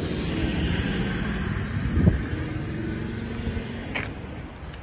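A motor vehicle's engine running close by, louder in the first half, with a sharp low thump about two seconds in.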